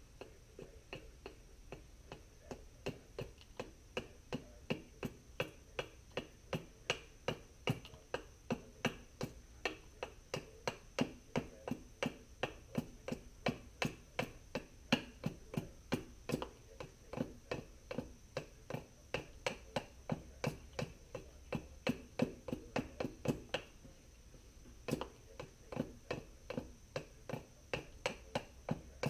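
Small hatchet chopping into a red sumac spoon blank held upright on a wooden block, roughing out the shape: sharp chops about two a second, with a brief pause about 24 seconds in.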